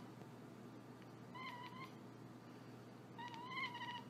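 Long-haired colorpoint cat meowing twice, a short meow and then a longer one near the end.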